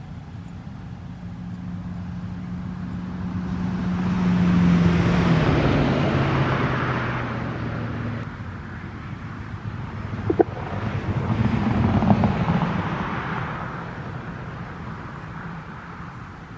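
Road traffic passing: a car goes by about five seconds in, its engine hum dropping in pitch as it passes, and a second, quieter vehicle passes a few seconds later.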